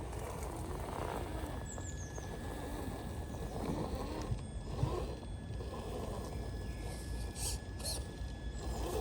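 Vehicle engines running, their pitch rising and falling over a steady low rumble, with a brief high chirp about two seconds in.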